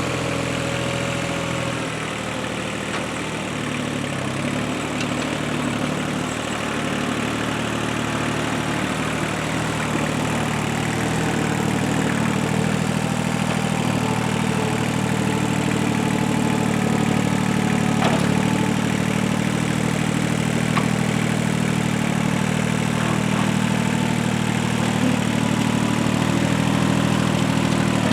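Heavy equipment engine running steadily, getting a little louder partway through as the machine works.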